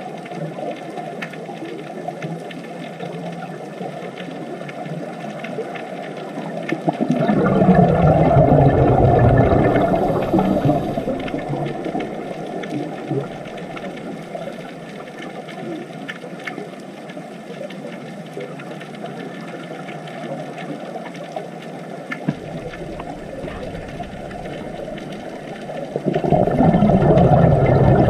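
Underwater water ambience: a low, steady rushing. It swells louder about seven seconds in and again near the end, each time with a low moan that falls in pitch.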